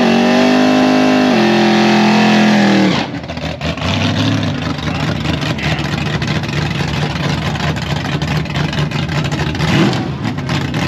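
Fox-body Ford Mustang drag car's engine held at high revs in a steady pitch for a burnout, stepping up once about a second and a half in. About three seconds in it drops off to a rough, choppy idle as the car rolls forward toward the staging lanes.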